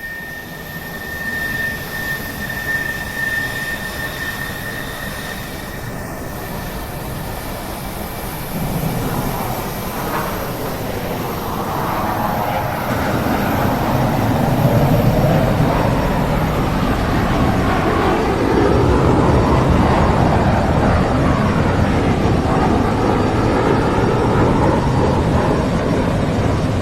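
Aircraft engine noise: a steady rushing drone that swells louder about halfway through, with a faint high steady tone that fades out in the first few seconds.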